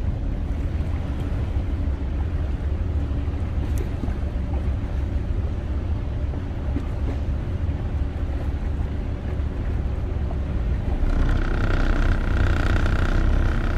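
Boat's engine running steadily as the boat motors out of a river lock. About eleven seconds in, a steady whine joins and the sound grows a little louder.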